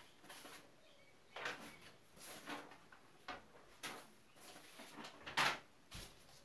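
Irregular short knocks, bumps and rustles of objects being handled and moved about, about eight in all, the loudest about five and a half seconds in.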